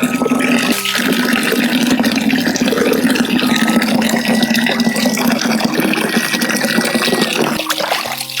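Water running steadily, as from a tap into a basin or pot, easing off near the end, with sustained notes of background music above it.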